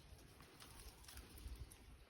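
Near silence: faint, uneven wind rumble on the microphone, with a few faint clicks.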